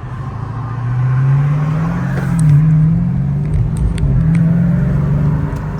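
SRT-swapped Chrysler 300's V8 accelerating hard in track mode on its stock exhaust. The engine note climbs for about two seconds, drops briefly, then climbs again and holds.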